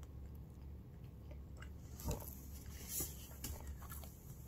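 A person chewing food with the mouth closed, close to the microphone, with a few short wet mouth clicks around two and three seconds in.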